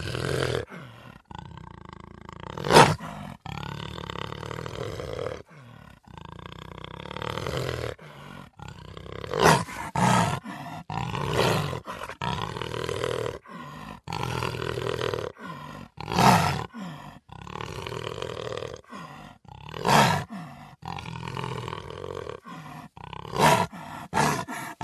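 Black jaguar (melanistic jaguar) roaring and growling in a long series of calls, with short gaps between them and louder sharp roars every few seconds.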